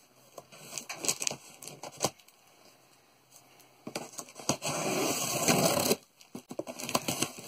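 A cardboard shipping box being opened: a blade slitting the packing tape along the seam with a few sharp clicks, then a louder scraping rip of about two seconds, starting about four seconds in, as the tape is pulled away. It stops abruptly and is followed by cardboard rustling.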